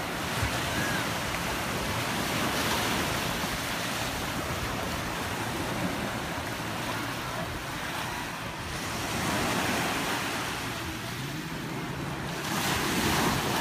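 Small waves washing onto a sandy beach, swelling louder a few times, with wind blowing on the microphone.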